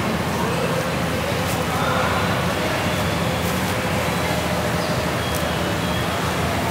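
Steady background noise of road traffic and a busy market, a constant rumble with a low hum.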